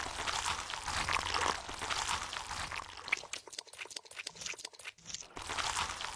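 Wet, hissing water noise like water pouring or trickling over mud. About halfway through it gives way to a run of crackling, squelching clicks, then the hiss returns near the end.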